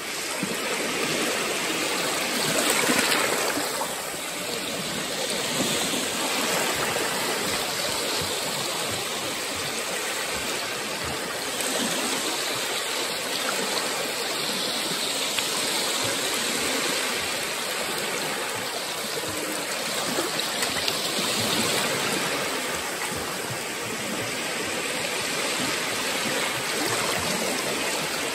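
Baltic Sea waves washing onto the beach: a steady rushing of surf that swells and eases every few seconds and is loudest about three seconds in.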